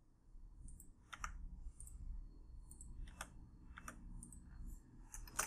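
Faint, irregularly spaced clicks of a computer mouse and keyboard, about half a dozen over a few seconds, with a low hum underneath.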